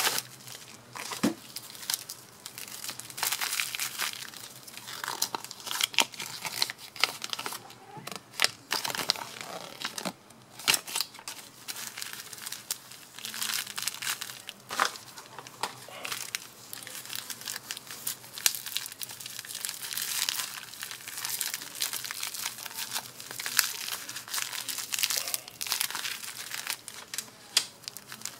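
Plastic bubble wrap and a padded mailer crinkling and rustling as they are handled and unwrapped, with many sharp crackles throughout.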